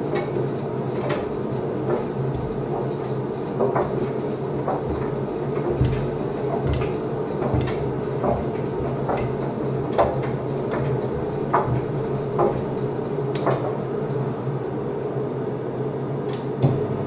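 Beko WDC7523002W washer-dryer tumble-drying: a steady hum from the drum motor and drying fan, with irregular light knocks and clicks, about one a second, as the tumbling load hits the drum.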